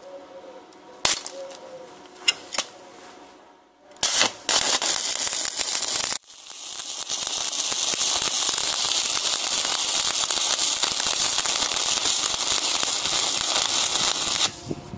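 Stick-welding arc from a 3 mm basic (low-hydrogen, 7018-type) electrode on an IWeld SuperForce 230 IGBT inverter. After a few sharp clicks, the arc strikes about four seconds in, breaks off after two seconds, then restarts and burns with a steady crackling hiss until it stops just before the end.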